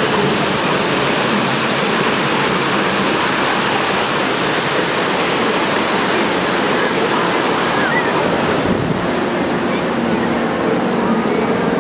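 Steady rush of wind on the microphone and surf, with the drone of distant T-6 Texan radial engines fading out early on and coming back near the end.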